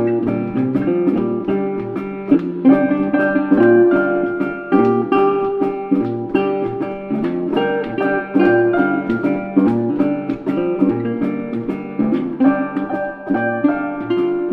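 Background music: a plucked-string melody played as a steady stream of quick notes.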